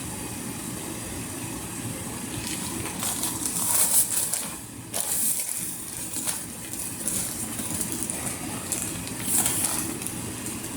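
Plastic packaging crinkling and rustling in short bursts as bathing suits are handled, over a steady low hum.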